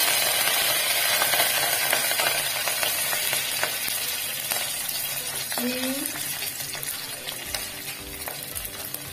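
Spices, green chilli and freshly added curry leaves sizzling in hot oil in a stainless steel pot, with many small pops. The sizzle is loud at first and slowly dies down.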